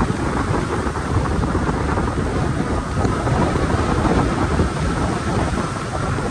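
Wind buffeting the microphone while riding an e-bike at speed: a loud, steady rumbling rush, heaviest in the low end.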